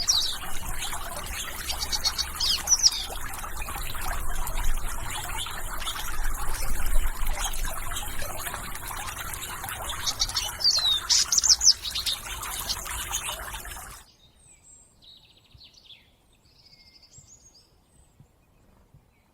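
Small birds chirping and twittering over a steady rushing hiss. About three-quarters of the way through, the hiss stops abruptly and only a few quieter bird calls remain.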